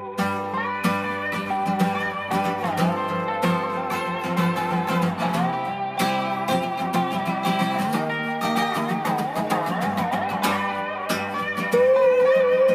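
Instrumental rock intro: guitars over bass and a steady drum beat, with no vocals yet. It gets louder about twelve seconds in.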